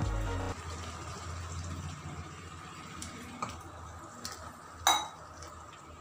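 A spatula stirring thick curry gravy in a kadai, with soft wet sloshing and a few light knocks against the pan. About five seconds in comes one sharper clack, the loudest sound.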